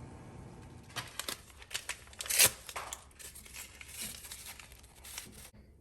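Irregular crackling and rustling, like something being crumpled or rubbed close to the microphone, loudest about two and a half seconds in and cutting off abruptly near the end.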